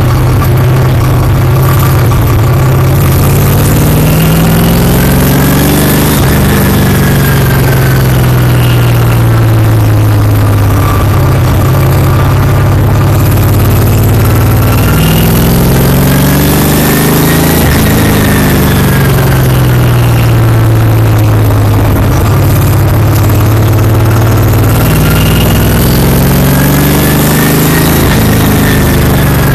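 Stock car V8 engine heard from inside the cockpit at speed on the track, loud and continuous. Its pitch climbs and falls in long swells about every eleven seconds as the car accelerates and backs off around the lap.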